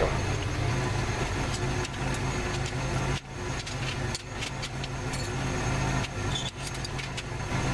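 Steady electrical hum with fan noise from the AHP TIG welder standing by between welds, with no arc struck. The hum drops out briefly two or three times.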